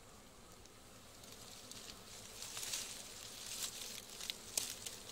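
Bee smoker bellows puffing over an open Indian honey bee (Apis cerana indica) hive, a hiss that starts about a second in and swells roughly once a second, with a few sharp clicks of the hive tool against the wooden frames.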